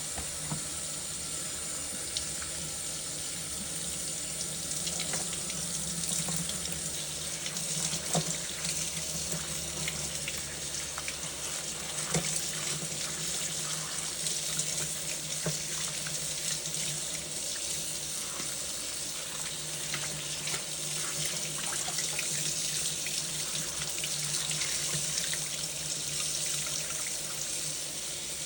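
Water running steadily from a kitchen tap into a sink, with a few light clinks.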